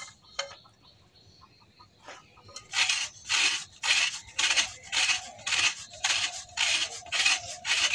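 A block of jaggery (gur) being rubbed back and forth on a metal hand grater: a run of rasping strokes, about two to three a second, starting about two and a half seconds in.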